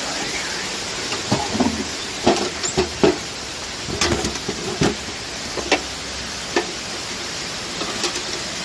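Steady rushing of a waterfall, with a scatter of irregular clicks and knocks from handling a trail register box.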